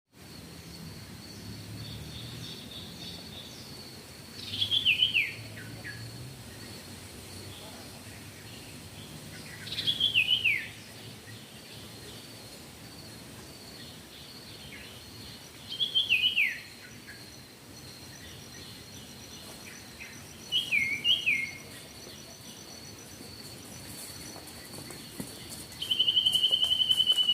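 A bird calling four times, each call a quick run of down-slurred whistled notes, spaced about five to six seconds apart, then a steady buzzy trill near the end. A faint, steady high insect drone runs underneath.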